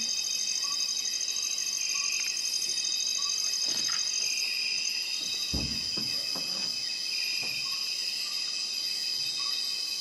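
Bornean rainforest insect chorus at night: several steady high buzzes and trills layered together, one of them a rapid pulsing trill that stops about halfway through. Short faint notes repeat about once a second beneath the chorus, and a couple of dull low thumps come around the middle.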